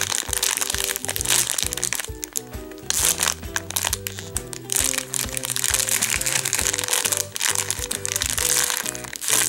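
Clear plastic packaging bag crinkling and crackling in irregular bursts as it is handled and opened around a foam squishy toy, over background music.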